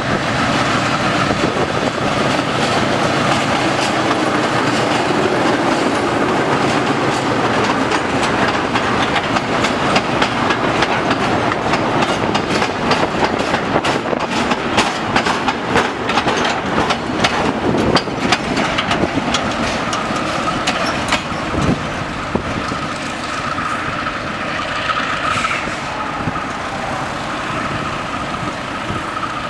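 Empty diesel-hauled freight train passing close by. The locomotive's engine comes first, then a long run of empty open wagons rattling, their wheels clicking over the rail joints in quick succession, thickest about halfway through. The sound eases toward the end as the train draws away.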